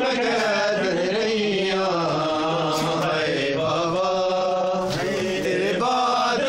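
A group of men chanting a mourning lament (nauha) together in long, drawn-out notes during matam. Two sharp slaps, about three seconds in and again about five seconds in, fit hands striking bare chests.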